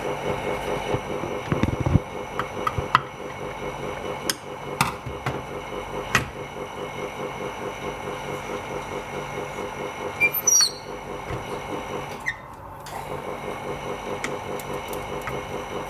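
Steady electric hum of a film laminating machine's pump motor running, with a few sharp clicks and knocks of handling and a short squeak about ten seconds in.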